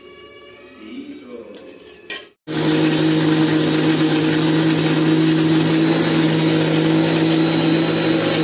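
Electric mixer grinder running with a loud, steady hum and whine, grinding a wet paste in its steel jar. It starts suddenly about two and a half seconds in, after a few seconds of quieter handling.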